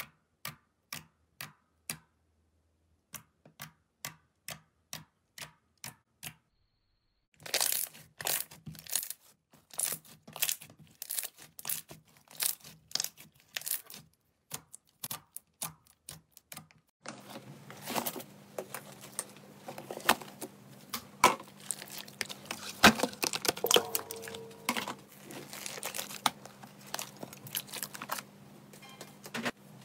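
Slime being poked and squeezed by hand: separate wet clicks and pops, evenly spaced at first and denser from about seven seconds in. From about seventeen seconds there is a continuous crackle of slime mixed with foam beads being squished, over a low steady hum.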